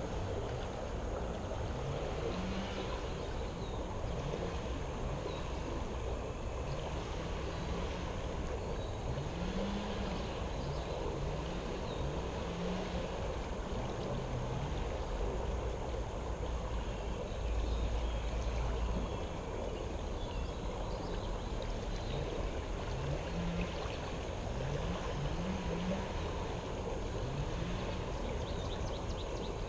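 Steady rush of moving water with a low rumble underneath; the rumble swells briefly about two-thirds of the way in.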